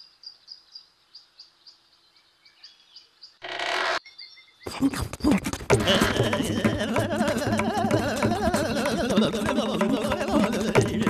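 High-pitched chirping repeating several times a second, faint. A short, loud, noisy burst comes about three and a half seconds in. From about five seconds a dense, busy soundtrack with many clicks and wavering pitched strands takes over.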